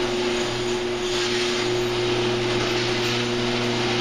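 Garage door opener motor running steadily as it drives the door along its track, a constant hum under an even mechanical rush.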